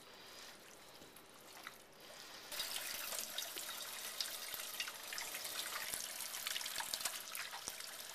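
Kitchen tap running into a stainless steel sink while hands are washed under the stream; the water comes on about two and a half seconds in, after a quieter start.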